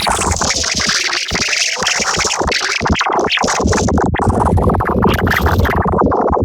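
Loud electronic music with synthesizers and sweeping effects.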